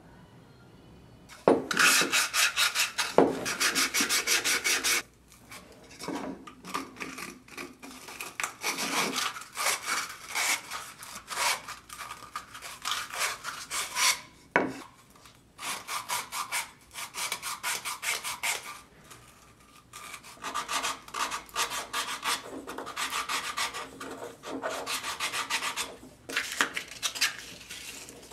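Wooden lamp-kit parts sanded by hand on a sheet of sandpaper: quick rasping strokes, loudest from about two to five seconds in, then irregular runs of strokes with short pauses.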